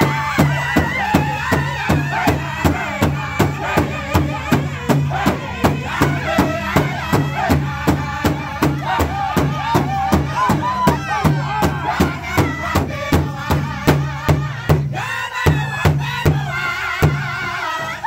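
Powwow drum group singing in high voices over a large hide drum struck in unison with beaters, a steady beat of about two and a half strokes a second, for a Men's Traditional dance song. The beat breaks briefly about fifteen seconds in, then picks up again.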